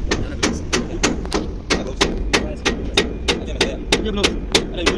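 Hammer striking repeatedly at an even pace, about three sharp blows a second.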